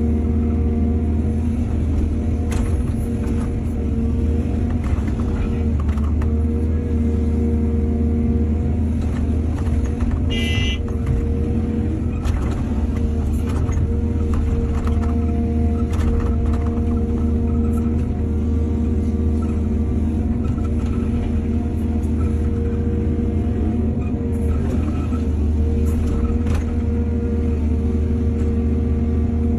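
Excavator's diesel engine running steadily, with scattered knocks and clanks throughout and a brief high-pitched ring about ten seconds in.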